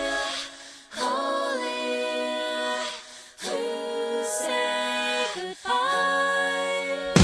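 Soundtrack music: sung vocal phrases with little or no backing, held notes that slide between pitches, broken by short pauses about a second in, after about three seconds and after about five and a half seconds.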